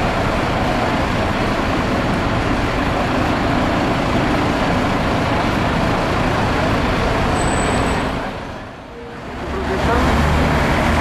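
Street traffic with a city bus's engine running. The noise dips briefly about nine seconds in, then a steady low engine hum takes over near the end.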